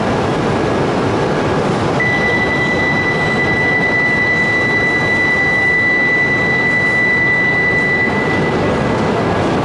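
Steady loud whirring noise of a stationary Tohoku Shinkansen E5-series train coupled to an Akita Shinkansen E6 train at the platform, waiting to depart. A single high, steady electronic tone sounds from about two seconds in until about eight seconds in, then stops.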